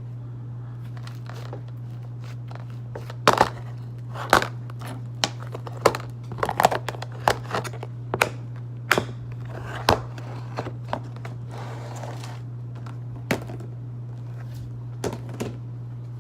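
Slime being squished and poked by hand, giving irregular sticky pops and crackles, some sharper than others, over a steady low hum.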